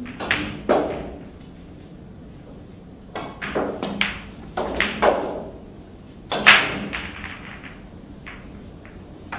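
Billiard balls clacking during a shot on a Chinese eight-ball table: the cue strikes the ball, then balls knock against each other and the cushions in a scattered run of sharp knocks. The loudest knock comes about six and a half seconds in.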